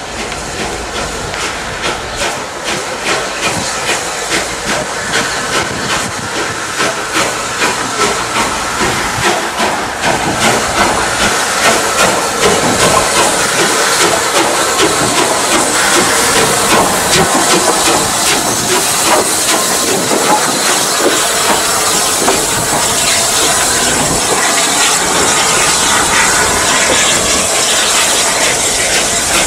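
Bulleid West Country Light Pacific steam locomotive passing close at walking pace, with a loud steam hiss from its cylinder drain cocks. A regular beat about twice a second grows louder as the engine nears, then gives way to a steady loud hiss as it passes.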